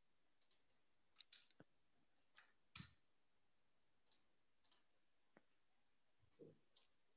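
Near silence broken by scattered faint clicks of a computer mouse and keyboard, about a dozen at uneven intervals.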